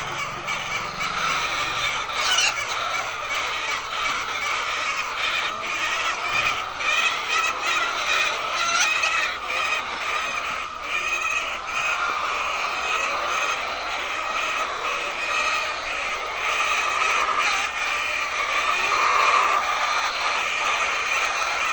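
Many laying hens clucking and calling together in a continuous dense din, with scattered short clicks.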